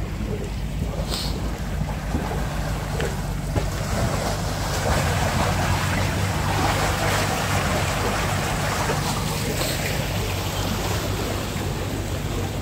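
Water rushing through a narrow concrete irrigation channel and into a culvert, a steady splashing rush that grows louder toward the middle, over a steady low rumble.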